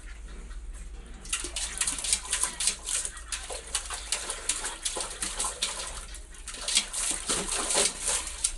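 Husky puppy pawing at water in a stainless steel pot, splashing it again and again, beginning about a second in.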